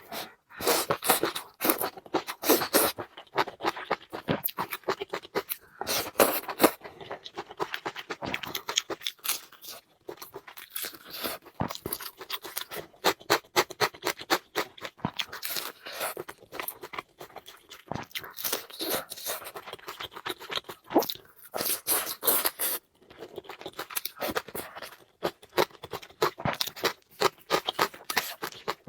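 Close-miked eating sounds: a person chewing and crunching food in quick, irregular bursts with short pauses.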